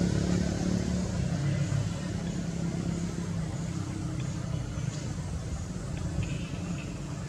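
A motor vehicle's engine running with a steady low hum, slowly fading as it moves away.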